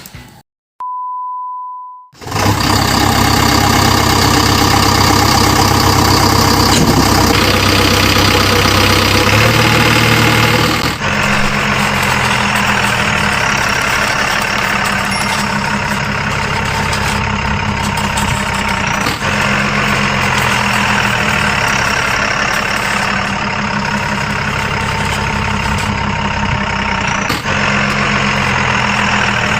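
A one-second electronic beep, then an RC construction model's sound module playing a loud simulated diesel engine idling through its small speaker. The engine sound shifts about eleven seconds in.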